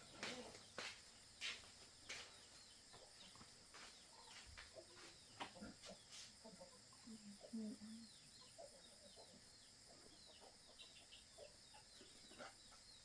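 Faint chickens clucking in short low calls, with many quick high chirps of small birds and a few sharp clicks near the start.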